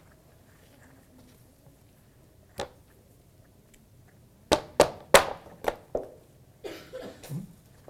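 A small knife knocking against an avocado pit to work it out of the halved avocado: one sharp tap, then a quick run of five sharp knocks, followed by softer scraping and handling.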